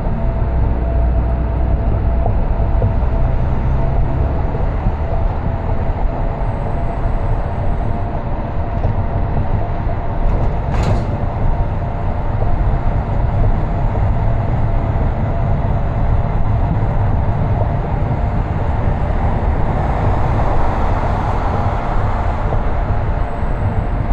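Steady road noise of a car driving: a low rumble with a faint constant hum, and a single sharp click about eleven seconds in.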